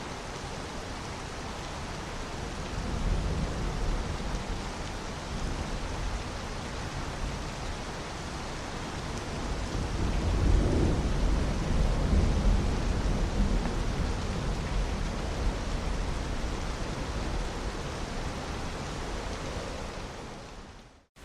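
Tropical-storm rain and wind, a steady rushing hiss with deep low swells twice, the stronger one about ten seconds in. It fades out at the very end.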